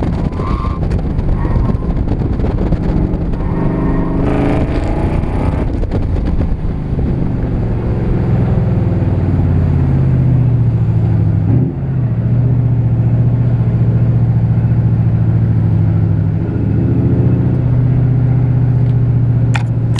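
Car engine working an autocross course, heard from a camera mounted outside the car. Its pitch rises and falls through the first few seconds, then it settles into a steady drone with one brief dip about halfway through.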